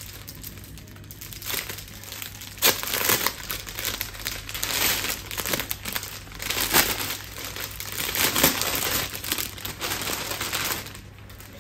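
Packaging crinkling and rustling as it is handled and unwrapped, uneven throughout, with a few sharper crackles.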